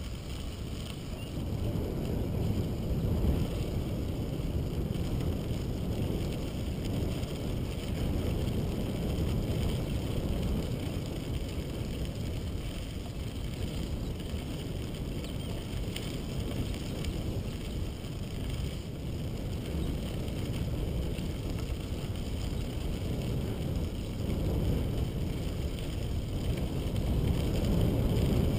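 Steady low rumble of wind buffeting a bike-mounted camera's microphone, mixed with bicycle tyres rolling over a crushed-stone trail, growing a little louder near the end.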